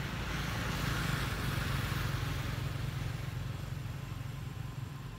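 A motor vehicle passing on the road: engine hum and tyre noise swell to a peak about a second or two in, then slowly fade.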